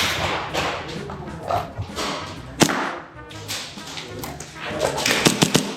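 Airsoft gun shots: one sharp crack about two and a half seconds in, then a quick run of several shots near the end, over background music.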